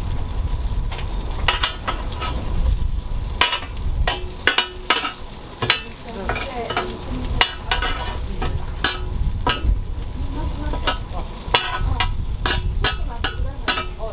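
Cooking sounds: food frying in oil, with frequent sharp clicks and knocks of utensils against pans and dishes at an irregular pace, over a steady low rumble.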